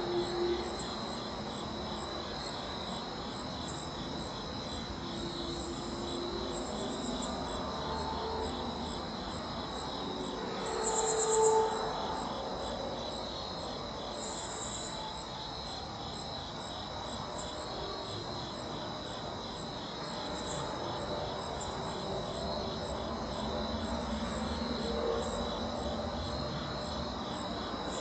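Crickets trilling in a steady, continuous high-pitched chorus. A brief louder sound stands out about eleven seconds in.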